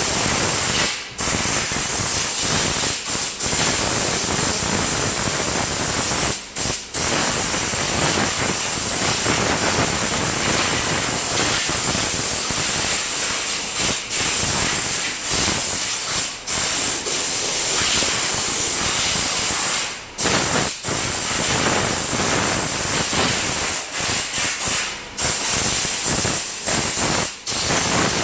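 High-pressure water spray washing down a car's engine bay: a loud, steady hiss broken by brief gaps every few seconds as the spray is stopped and started.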